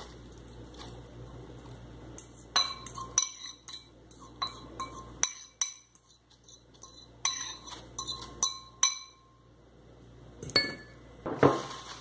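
A metal fork tapping and scraping against a ceramic bowl: a run of sharp, ringing clinks, with a few more spaced-out taps near the end, as the last of the raw omelette mixture is scraped out of the bowl.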